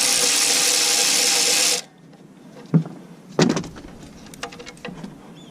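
A cordless power tool spinning a 14 mm socket runs for just under two seconds and stops abruptly, followed by a few sharp metal clinks and knocks of tools.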